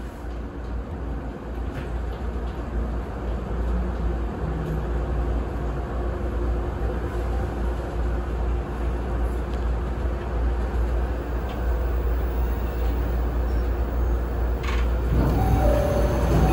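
E217 series electric train accelerating away from a station, heard inside the driver's cab: a steady rumble of wheels on rails that grows gradually louder, with faint motor tones. About fifteen seconds in, a louder rattle starts along with a high wheel squeal.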